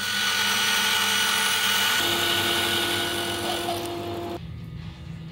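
Bandsaw cutting through a block of hardwood: a loud, steady rushing noise with a steady high tone over it. The cut ends about four seconds in, and the sound drops to the machine's quieter running hum.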